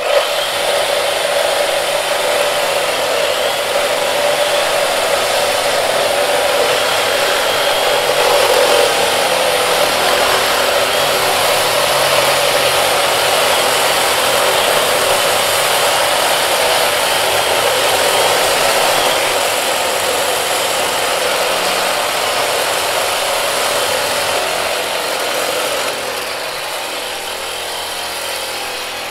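Cordless reciprocating saws running steadily while cutting through thick-walled steel fire sprinkler pipe, a continuous harsh buzzing with the blades rasping on the metal. The sound drops somewhat near the end.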